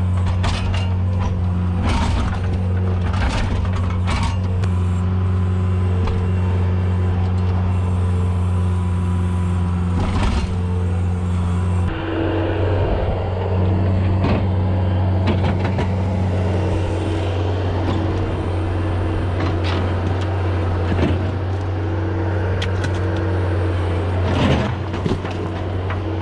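Skid steer's diesel engine running steadily, its note shifting about halfway through, with scattered sharp clanks and knocks as it works broken-out concrete.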